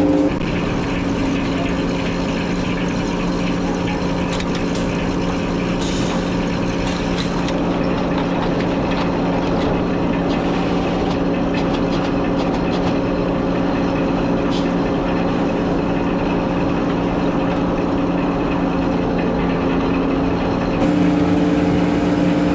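An engine runs steadily at an even speed, giving a constant drone with a slight shift in pitch near the end.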